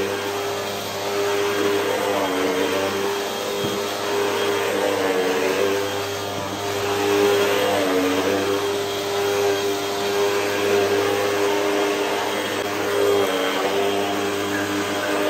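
Hoover WindTunnel upright vacuum cleaner running super loud as it is pushed back and forth over carpet, its motor tone dipping slightly in pitch every few seconds with the strokes.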